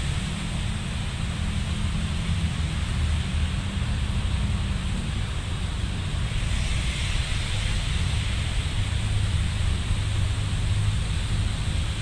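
Wind noise on the microphone, a steady rushing hiss over a constant low rumble.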